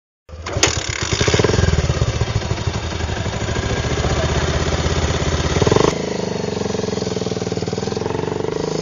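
Motor scooter engine running and revving as it pulls away. It comes in suddenly, builds over the first second or so, and eases to a steadier, lower note about six seconds in.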